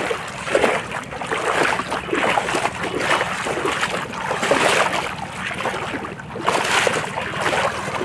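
Shallow water splashing and sloshing unevenly as a hooked snakehead is dragged through the surface and feet wade through the weedy shallows.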